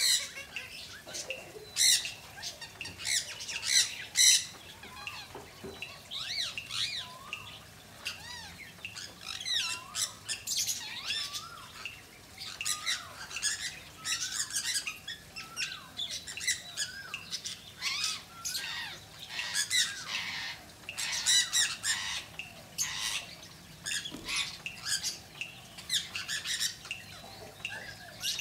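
Birds squawking over and over in short harsh calls, with brief whistled, gliding notes in between.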